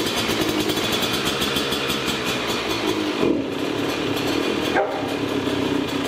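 Yamaha YZ125 two-stroke single-cylinder dirt bike engine, with a VH aftermarket expansion-chamber exhaust, running just after being kick-started for the first time since a rebuild with a new piston kit. The throttle is blipped a couple of times, about three and five seconds in.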